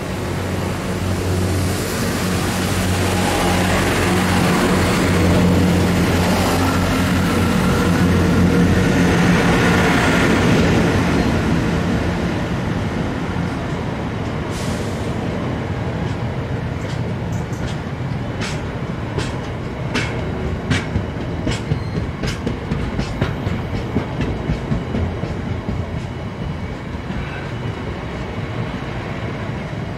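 Long aggregate train of bogie hopper wagons rolling past: a steady rail rumble, loudest in the first ten seconds or so. From about halfway it is joined by a run of sharp wheel clicks.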